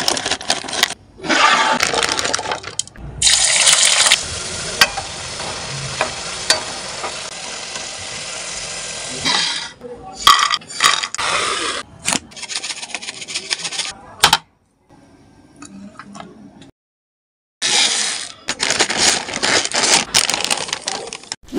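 Scissors cutting open a plastic snack packet, the bag crinkling, then frozen french fries tumbling and clinking into a bowl. Near the end, scissors cut open a second plastic packet with more crinkling.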